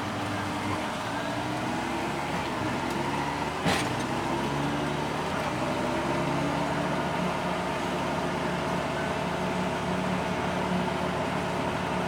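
Combine harvester running steadily while harvesting canola: a constant machine drone with several held hums. A single sharp click comes about four seconds in.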